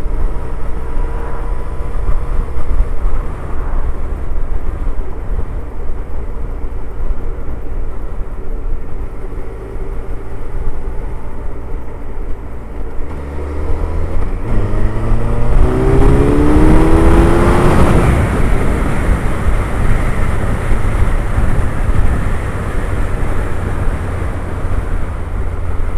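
Suzuki Hayabusa's inline-four engine running steadily at motorway cruising speed, with wind and road noise. About two-thirds of the way through, the engine note rises in pitch and grows louder for a few seconds, then settles back to a steady cruise.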